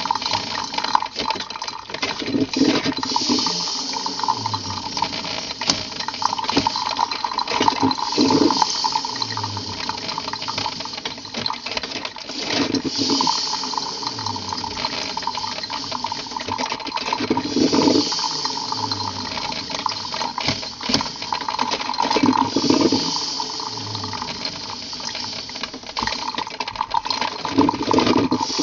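Coffee being made at a café counter: a continuous hiss of steam and running liquid, with frequent small clinks of cups and metal. A low swell recurs about every five seconds.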